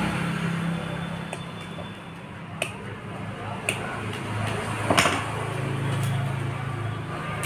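A low, steady engine-like hum that dips and swells again, with several sharp clicks, the loudest about five seconds in.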